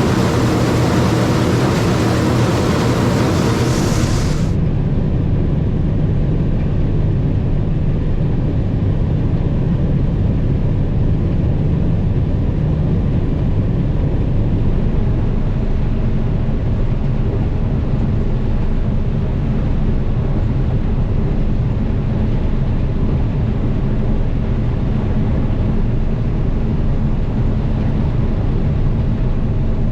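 Combine harvester running steadily while harvesting corn: a loud, even engine drone with a brighter hiss on top that drops away about four seconds in.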